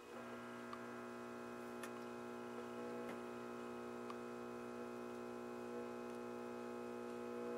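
Philco 60 tube radio's loudspeaker giving a steady hum with no station coming through, switching on suddenly at the start as the set is brought up, with a few faint clicks.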